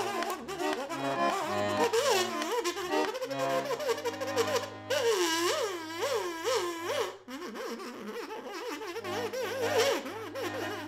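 Music: held low chords under a melody that swoops and wobbles up and down in pitch, in repeated arching glides. The low chords drop out for a moment about seven seconds in.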